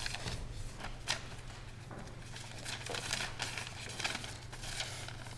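Sheet of letter paper rustling and crinkling in a man's hands as he unfolds and reads it, in short scattered bursts over a low steady hum.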